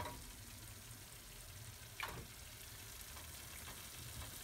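Onion-tomato masala frying faintly in a nonstick pan, a quiet sizzle with scattered small pops. A sharp knock right at the start and another about two seconds in come from boiled chicken drumsticks being set into the pan.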